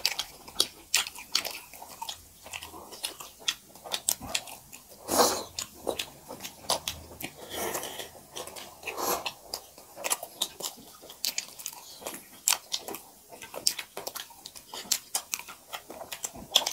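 Close-miked eating sounds of two people eating maize dhido and chicken curry by hand: wet lip smacks and chewing, as many short sharp clicks several a second, with a louder, longer mouthful sound about five seconds in and another near nine seconds.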